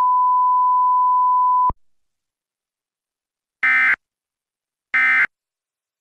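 Emergency Alert System tones. A steady high single tone cuts off sharply about two seconds in, then after a pause come two short buzzy bursts of SAME digital data about a second and a half apart: the end-of-message code that closes an EAS alert.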